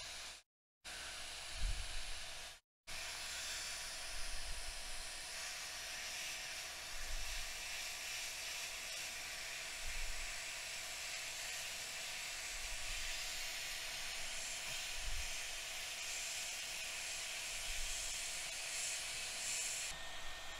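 Steady airflow hiss from a hot-air rework station blowing on a MacBook logic board. It breaks off twice for a moment near the start.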